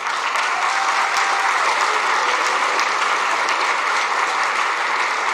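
Theatre audience applauding: dense, steady clapping that starts all at once and keeps an even level.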